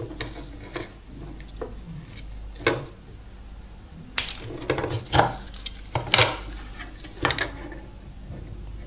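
Scattered light clicks and taps of hands handling thin wires and the plastic shell of an opened telephone handset on a workbench, about nine in all, the loudest a little after six seconds in.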